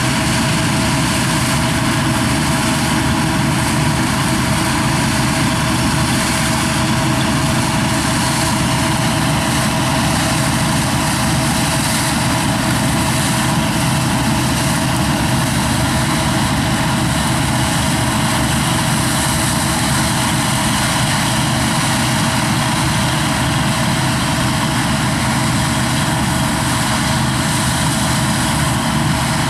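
Claas Dominator 88 SL combine harvester running steadily while threshing rye: its diesel engine and threshing works at a constant working pace.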